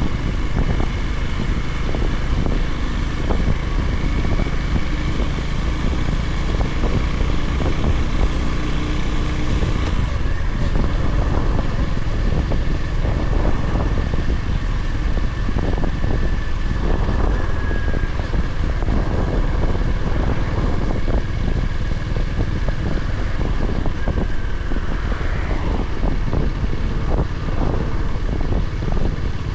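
Honda GB350's air-cooled single-cylinder engine running while the motorcycle is ridden along the road: a steady, loud drone that changes character about ten seconds in.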